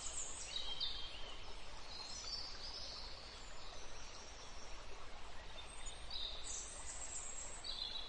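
Faint birdsong ambience: scattered short, high chirps and whistles, some gliding down in pitch, over a low steady hiss.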